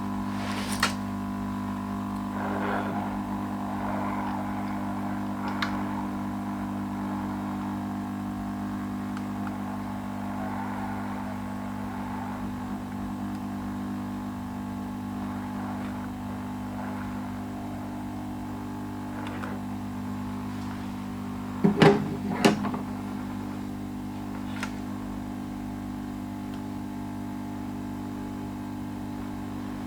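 Steady low electrical hum from workbench equipment, with a few light clicks and two louder knocks close together about 22 seconds in.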